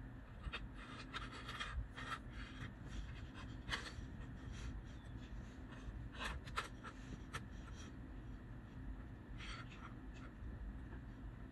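Small plastic colour caps of a Farnsworth D-15 test slid across a wooden tabletop and nudged into a row: soft scattered scrapes and light clicks over a low steady hum.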